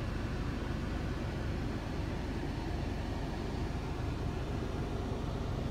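Steady road and engine noise heard from inside a moving car.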